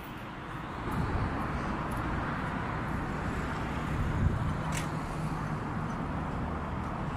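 Steady outdoor street background noise with a low rumble, and a faint click about five seconds in.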